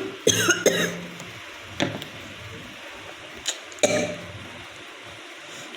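A woman coughing and clearing her throat. There is a fit of coughs about a third of a second in lasting around a second, a short cough near two seconds, and another about four seconds in. It is a real cough from a heavy cold.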